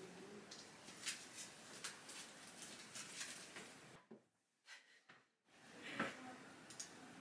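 Faint taps and rustles of paper greeting cards being handled and sorted on a desk, with a few light clicks. There is a short stretch of dead silence in the middle.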